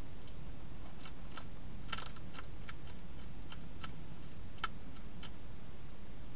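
Wild hedgehog crunching dry food: an irregular run of small sharp clicks, thickest about two seconds in, over a steady low background hiss.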